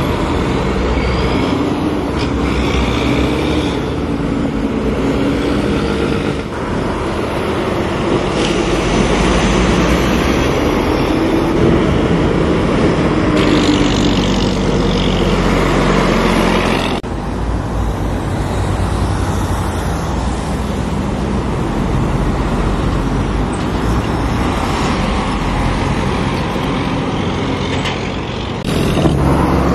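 Road traffic with trucks and cars driving past: engines running and tyre noise on the road, with engine pitch gliding as vehicles go by. The sound changes abruptly three times, about a fifth of the way in, just past halfway and near the end.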